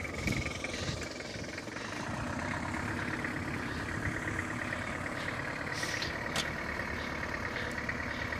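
Toyota pickup truck's engine running steadily at low speed as it crawls through deep snow, with two short clicks about six seconds in.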